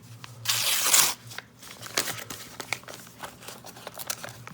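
A mailing package torn open in one loud rip, followed by crinkling and rustling of the packaging as it is pulled apart.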